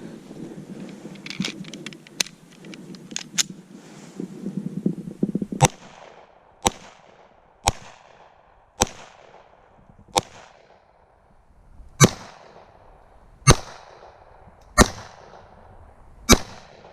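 Glock pistol in .357 SIG fired nine times in slow, single shots, each a sharp crack with a short echo, about one to one and a half seconds apart, starting about five and a half seconds in. Before the shooting there is a low rumble with a few faint clicks.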